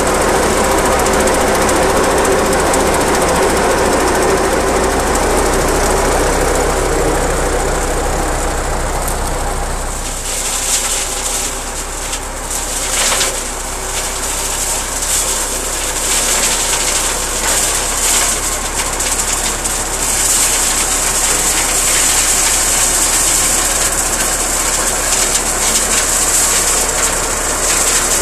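Teagle Dyna Cut 400 flail hedge cutter spinning and shredding brambles, driven by a Zetor 5545 tractor, with the diesel engine running under load. Close to the cutting head at first, with a steady drone and whine; about ten seconds in the sound changes to the tractor and flail heard from further off, with a steady high hiss of chopped brambles.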